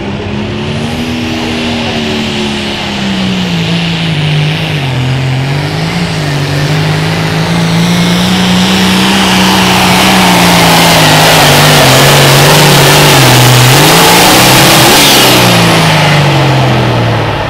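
John Deere 4430 pulling tractor's turbocharged diesel engine at full throttle during a pull. Its pitch wavers up and down and it gets louder through the middle, then the pitch drops away near the end as the throttle is cut at the red flag.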